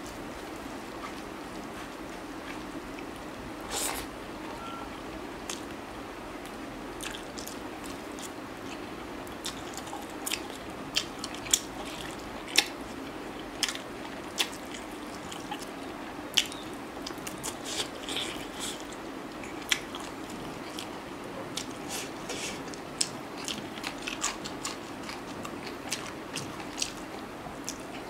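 Close-up eating sounds of a man eating chicken curry and rice by hand: chewing and biting, with sharp short clicks and smacks that come sparsely at first and often from about ten seconds in, over a steady low background hiss.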